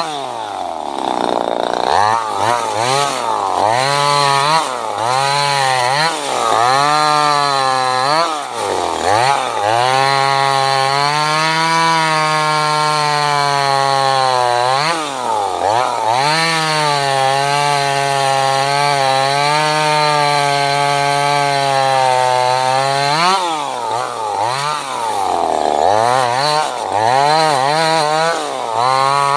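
Small 25cc two-stroke top-handle chainsaw running hard, its engine speed dropping and climbing back several times, with long stretches held near full throttle.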